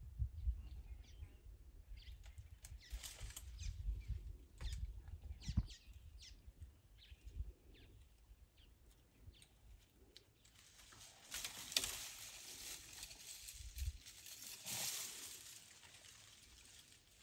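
African elephant browsing a small tree with its trunk: scattered snaps and rustles of leaves and twigs being pulled, then a longer stretch of rustling about two-thirds of the way through.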